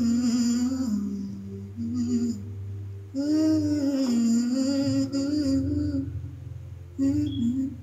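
A woman humming a slow wordless melody with vibrato, in three phrases separated by short breaths.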